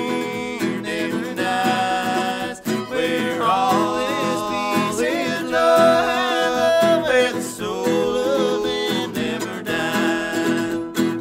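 Two men singing a gospel song in harmony, accompanied by a strummed acoustic guitar and a mandolin.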